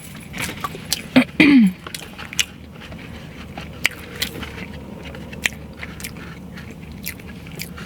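Close-miked eating: biting and chewing food with scattered wet mouth clicks and smacks. There is a short vocal sound, falling in pitch, about a second and a half in.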